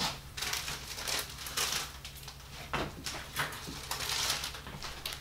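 Plastic cookie packaging rustling and crinkling in short irregular bursts as the bags are handled.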